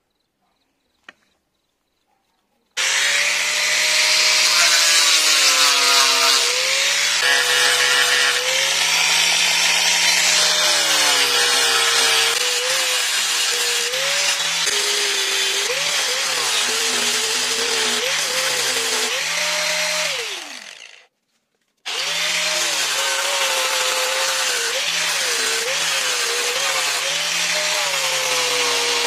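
Handheld electric sander with a foam-backed sanding pad running against a wooden dagger handle. Its motor pitch dips and recovers as the wood is pressed into the pad. It starts a few seconds in, winds down and stops about two-thirds of the way through, then starts again a second later.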